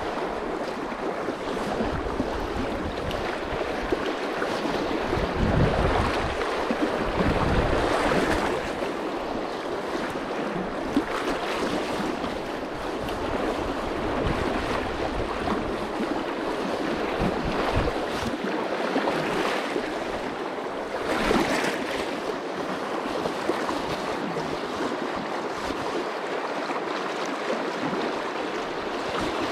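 Fast-flowing river current rushing steadily around the wading angler, with wind buffeting the microphone in gusts, strongest in the first several seconds.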